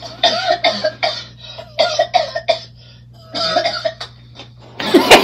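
A person coughing in three short bouts, each a quick run of coughs. Near the end a loud burst of music cuts in.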